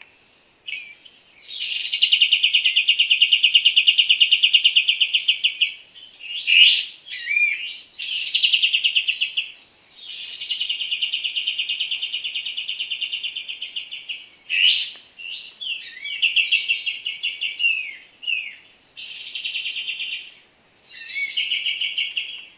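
Kapas tembak, a bulbul, calling: six fast rattling trills, each one to four seconds long, with short sharp swept notes between them. This is the call used to lure kapas tembak to the trap perches.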